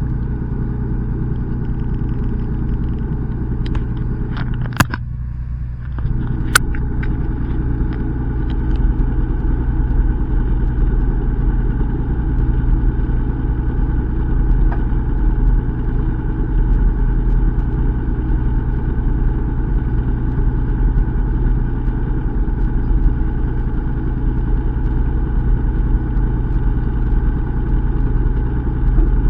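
Fishing boat engine running steadily with a low hum. A few sharp clicks or knocks come in the first several seconds, and around five seconds in the hum briefly thins out for about a second.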